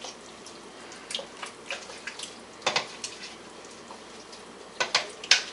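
Thick tomato pasta sauce being stirred in a pot: irregular wet clicks and scrapes of the utensil against the pot, with a couple of louder knocks near the end.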